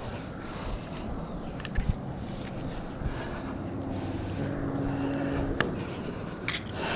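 Steady high-pitched chorus of summer insects. There are a few soft knocks, and a faint low hum about halfway through.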